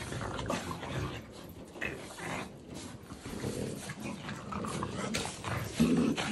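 Dogs play-fighting: French bulldogs and a Giant Schnauzer puppy growling as they wrestle, with a louder growl near the end.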